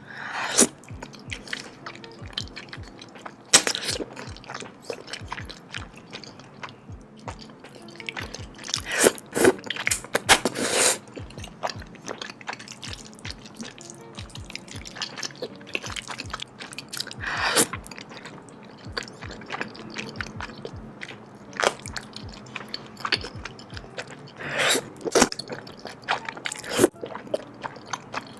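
Close-miked mukbang eating: crunchy bites into fried food, loudest a handful of times, with chewing between them. Soft background music plays under it.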